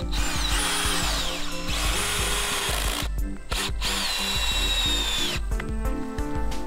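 A power drill run in three bursts with a short blip between them, its motor whine dropping in pitch as it slows under load.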